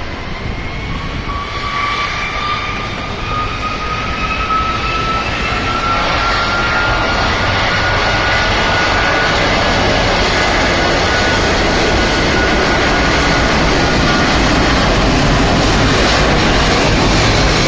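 Turbofan engines of a twin-engine wide-body airliner spooling up for take-off, with a dense jet rumble that grows steadily louder. A whine climbs in pitch over the first nine seconds or so, then holds steady.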